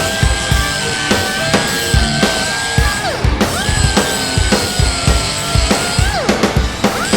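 Background music with a steady drum-kit beat under a long held high note that drops away and returns twice.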